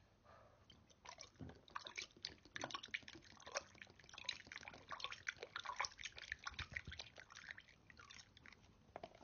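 Quiet, rapid, irregular wet clicks and taps of a plastic water bottle's cap against teeth, lips and tongue, starting about a second in.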